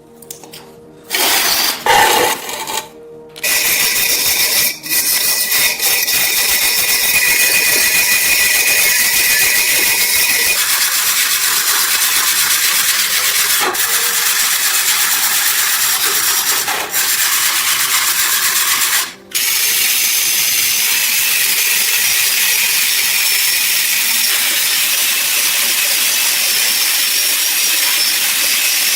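A power tool runs steadily on metal with a high, hissing whine. It stops briefly a few times, and the longest gap comes about two-thirds of the way through.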